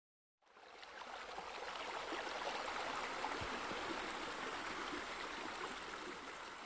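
Steady rush of splashing, falling water that fades in about half a second in: the sound of pool water features, bowls and a sheer descent spilling into a pool.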